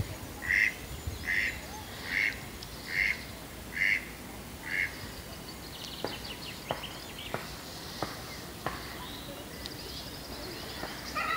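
Duck quacking: a run of six evenly spaced quacks, just under one a second, then a few shorter, sharper calls from about six seconds in.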